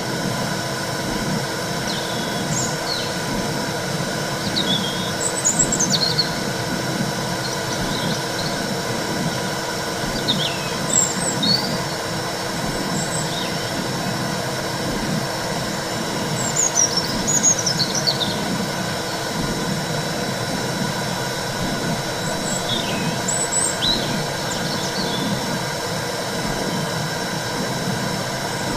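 Womb-sound recording for soothing a baby: a steady whooshing noise with an uneven low pulsing under a faint hum. Short high chirps and squeaks come and go throughout.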